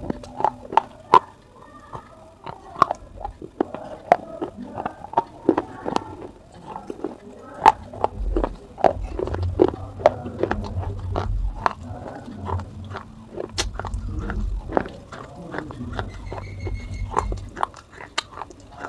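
Pieces of a baked clay pot (gullak) being bitten and chewed: irregular, sharp, brittle crunches, one to three a second, over a low chewing rumble.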